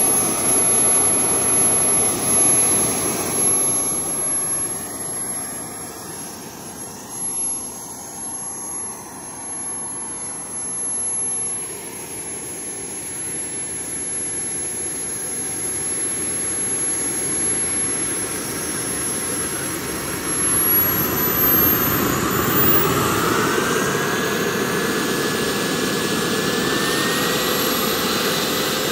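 Kerosene turbine engine of a Whiplash 700 RC helicopter running: a steady high whine over a loud rushing exhaust. Past the middle, pitches rise as the turbine spools up and the main rotor begins to turn.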